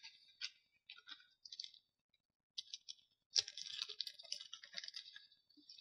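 Faint rustling and crinkling of Pokémon trading cards and their packaging being handled. It is sparse at first and nearly continuous from about three and a half seconds in.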